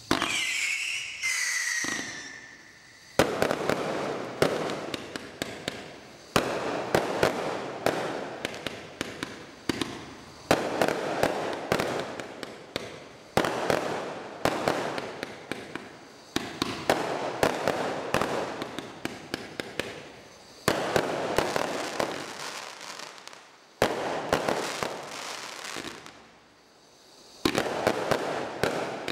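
Bright Star 2397 War Machine 224-shot compound firework barrage firing. It opens with a few whistles falling in pitch, then fires rapid volleys of shots and crackling bursts in waves a few seconds apart, with a short lull near the end.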